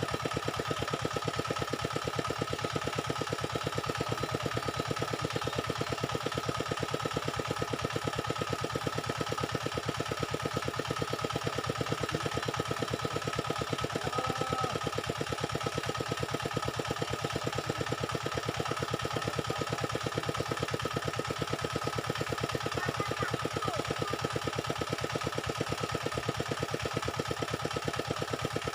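A small engine running steadily at idle, with a fast, even pulsing and a steady high hum over it.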